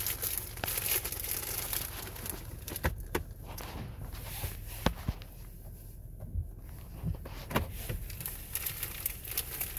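Scattered sharp taps and clicks at irregular moments over a low steady rumble, heard inside a car's cabin.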